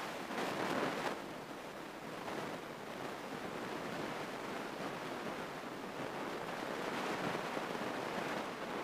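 Steady rushing cabin noise of a single-engine light aircraft in flight, its engine and the airflow blended into an even hiss, a little louder for about a second near the start.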